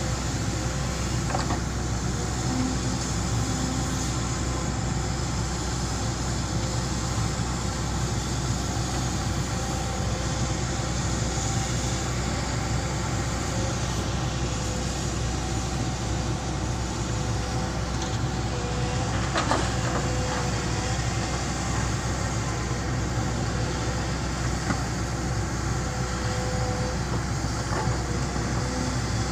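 Tracked excavator's diesel engine running steadily under load while it digs and loads soil, with a sharp clank about twenty seconds in.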